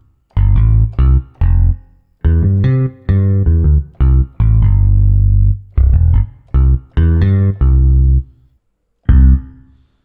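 Korg Triton software synthesizer's fingered electric bass preset (E.Bass Finger) playing a bass line of about fifteen separate plucked notes, one held longer just after the middle, with a last lone note near the end.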